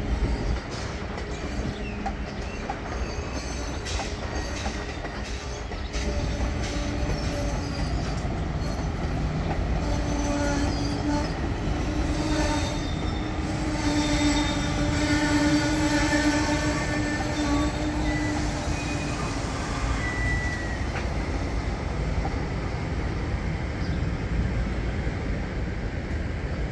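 Amtrak Superliner bilevel passenger cars rolling past on the rails with a steady wheel rumble and sharp clacks over the track. About ten seconds in, a wheel squeal sets in as several held tones and fades out around twenty seconds in.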